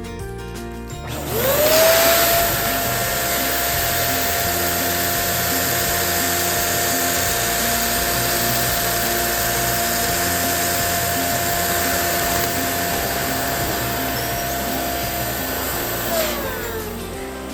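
Electric balloon pump inflating a balloon. Its motor spins up about a second in and runs steadily with a whine and rushing air for about fifteen seconds, then winds down near the end.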